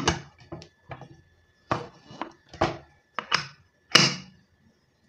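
A series of sharp metal clicks and knocks on an aluminium pressure cooker lid, the loudest about four seconds in as the weighted whistle is set onto the vent pipe.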